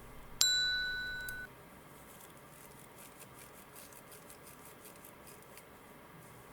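A single bright metallic ding that rings out and fades over about a second, followed by faint, scattered light ticks.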